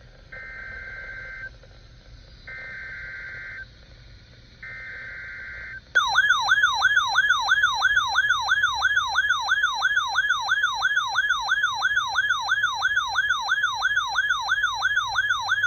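Three short bursts of NOAA Weather Radio SAME digital header data, each a rapid two-tone warble lasting about a second, followed by a loud electronic alert tone that warbles up and down about three times a second for roughly ten seconds. These are the alert tones of a Required Weekly Test, which trigger weather alert receivers.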